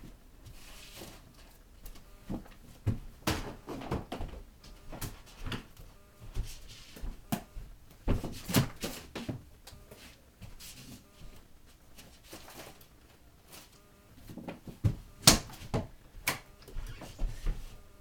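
Irregular knocks and thumps of balls and a person moving about around an indoor arcade-style basketball hoop, the loudest about halfway through and again about three-quarters of the way through.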